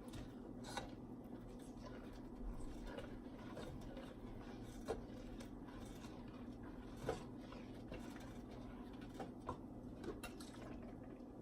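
Faint kitchen clatter: scattered light clinks and taps of utensils and dishes over a low steady hum, with two sharper knocks about five and seven seconds in.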